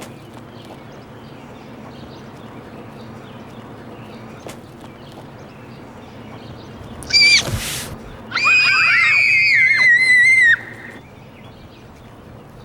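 High-pitched screaming: a short shriek about seven seconds in, then a long wavering scream of about two seconds, over a low steady background hum.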